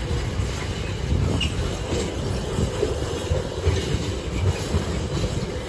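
A freight train's empty container flat wagons rolling past, a steady rumble and clatter of steel wheels on the rails.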